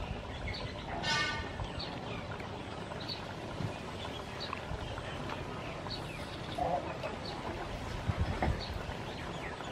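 Outdoor background with small birds chirping repeatedly, a short harsh bird call about a second in, and a few soft low knocks around eight seconds in.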